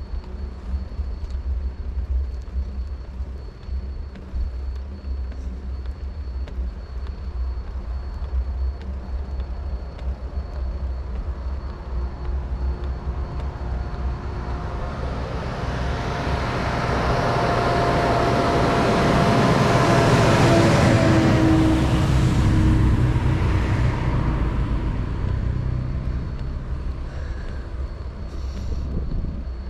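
Steady low rumble of wind on the microphone. A motor vehicle comes up, passes with its engine and tyre noise swelling to a peak about two-thirds of the way in, then fades away.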